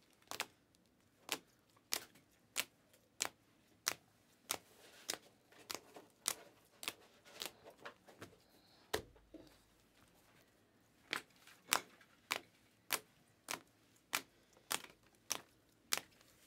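Rigid plastic card top loaders clacking against each other as cards are flipped one at a time from a held stack: a sharp click about every half second, with a pause of about two seconds just past the middle.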